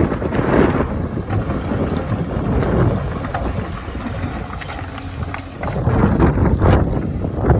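Excavator working in rock: its diesel engine runs under load while the bucket scrapes and knocks against stone. It eases off in the middle and grows louder again about six seconds in.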